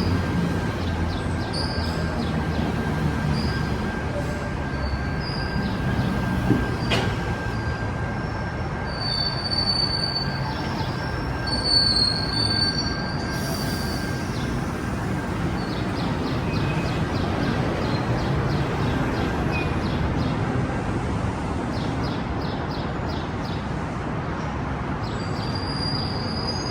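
GO Transit commuter train rolling in to stop at a station, a steady heavy rumble with high-pitched wheel and brake squeals, most clearly in the middle and again near the end. A rapid run of clicks comes in the second half as the train slows.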